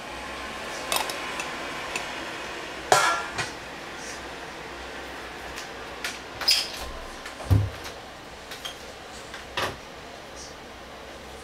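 Sharp clinks and knocks of a small Stirling engine kit's metal base plate being set down on a ceramic mug and handled into place: about half a dozen irregular hits, with one duller thump midway.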